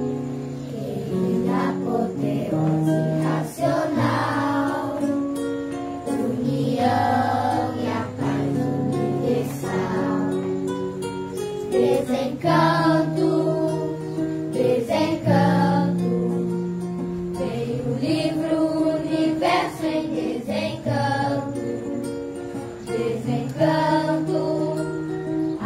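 A group of children singing together to strummed acoustic guitar.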